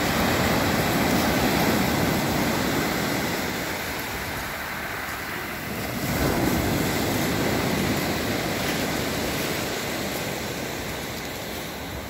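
Sea surf breaking on a pebble beach, a steady rush of water. It swells at the start and again about six seconds in, each time easing off slowly.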